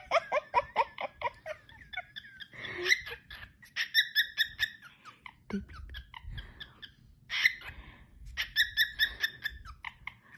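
Cockatiel chirping in quick runs of short, high-pitched notes, in several bouts with brief pauses between them.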